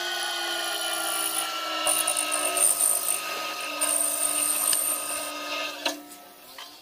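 A power tool or machine running with a rasping, rubbing cutting noise that comes and goes in bursts. Its motor pitch slowly falls, and the sound dies away near the end with a sharp click.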